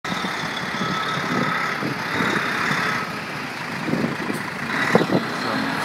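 Road traffic on a main road: engines and tyres making a steady rumble as vehicles pass, a heavy flatbed lorry among them. A brief knock about five seconds in.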